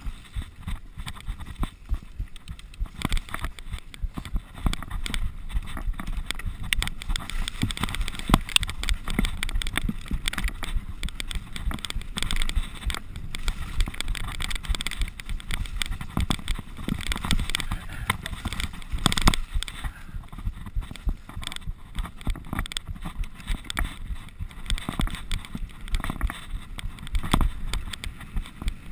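Mountain bike descending rough, muddy singletrack: a dense, irregular clatter of knocks and rattles from the bike over bumps and roots, over steady tyre noise on dirt.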